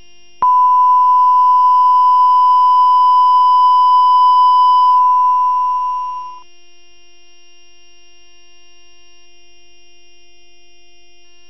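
Steady 1 kHz line-up reference tone that goes with television colour bars. It starts suddenly about half a second in and fades out after about six seconds, leaving a faint steady hum.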